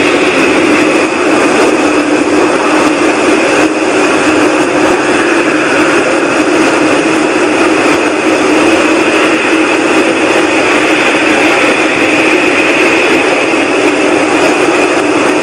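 Loud, steady droning noise in the sky, with a low hum and a higher whine held at an even level, of the kind reported as an unexplained 'strange sky sound' or 'sky trumpet'. The recorder insists it is not aircraft noise.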